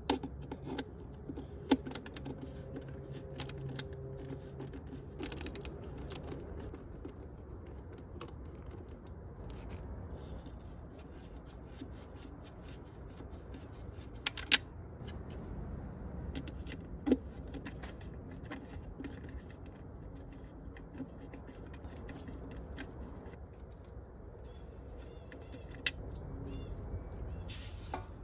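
Irregular clicks and light metallic clinks of small metal objects being handled, over a low steady hum.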